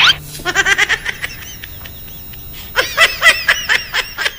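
A loud, short burst right at the start, then a rapid, high-pitched snickering laugh used as a meme sound effect, in two runs, the second one, about three seconds in, louder.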